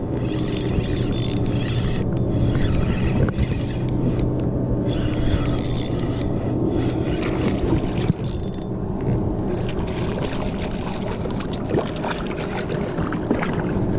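A boat motor running steadily with a low hum, over wind and water noise.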